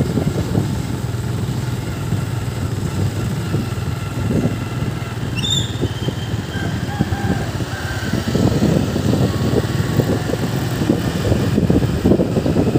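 Motorbike engine running steadily while riding along a street, with wind noise on the microphone that turns rougher about eight seconds in.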